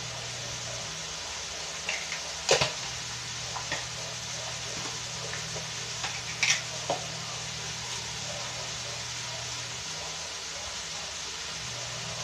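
Ground meat with diced hot dog and carrots frying in a pan on a gas stove, a steady sizzle with a low hum beneath it. A few sharp clicks come at about two and a half seconds and again at six and a half seconds.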